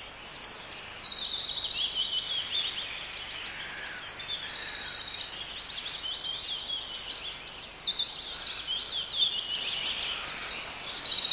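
Natural wildlife chorus of many overlapping high chirps, rapid trills and short falling calls from birds and insects, continuing throughout.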